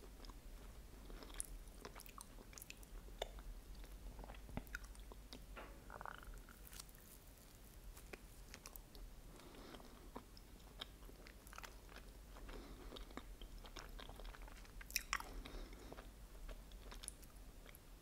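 Close-miked biting and chewing of a wafer ice cream sandwich, with many small wet mouth clicks scattered throughout. A louder cluster of clicks comes about fifteen seconds in.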